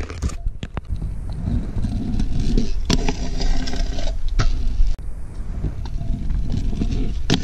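Stunt scooter wheels rolling over a concrete footpath with a low rumble, and a few sharp clacks of the scooter hitting the concrete, the loudest about three seconds in and just before the end.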